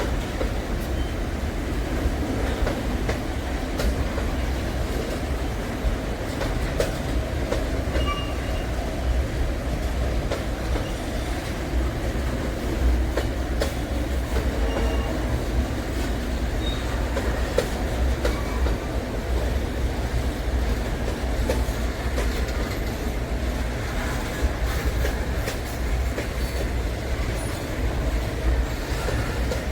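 Freight train cars rolling past in a steady, unbroken rumble with wheel clatter over the rail joints and a few brief wheel squeals.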